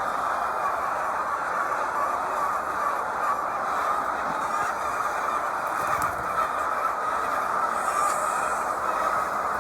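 Large flock of chickens making a dense, steady din of clucking and chatter.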